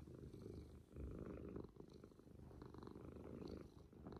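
Domestic cat purring softly and steadily.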